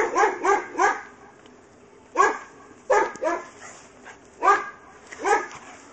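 Tibetan terrier barking in play, about ten short barks in quick clusters: four in a row at the start, then one, a pair, and a final few near the end.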